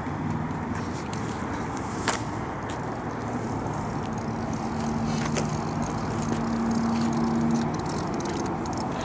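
Steady outdoor background noise with a low motor hum that grows a little louder through the middle and then drops back, and a couple of faint clicks.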